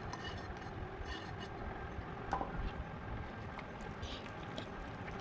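Thick brownie batter being stirred in a bowl to fold in crumbled chocolate pieces: a faint wet squishing, with a sharper tap of the utensil a little over two seconds in.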